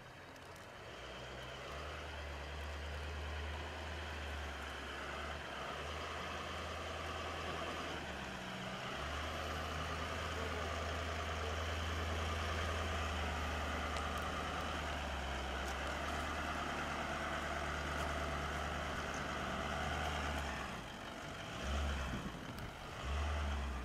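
Toyota Land Cruiser 200 engine running under load, with a hiss of tyres spinning. With its electronic traction aids switched off, the torque goes to the unloaded wheels hanging in the air, so the SUV spins its wheels without moving. The engine's steady drone drops out briefly twice and falters near the end.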